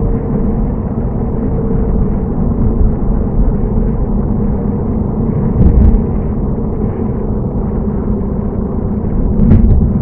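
Steady low rumble of road and engine noise heard inside a moving car's cabin while driving at a steady speed, with a brief louder bump a little before the sixth second.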